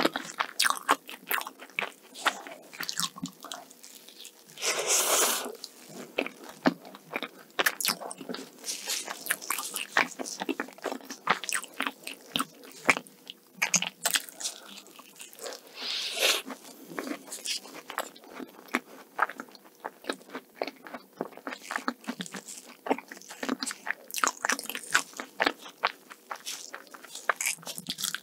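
Close-miked eating of a flaky egg tart: crisp crackling bites into the pastry crust and moist chewing, in a dense run of small crunches. Two longer hissing sounds come about 5 and 16 seconds in.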